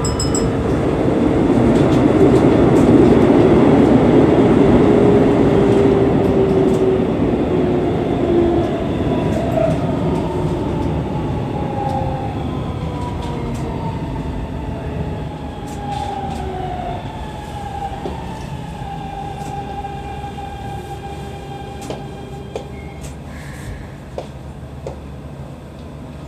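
Keikyu New 1000 series electric train braking into an underground station: the rumble of wheels on rail fades as it slows. Over the rumble, the whine of its Siemens GTO VVVF ("Doremifa") inverter and traction motors glides down in pitch in several steps. A few sharp clicks come through near the end.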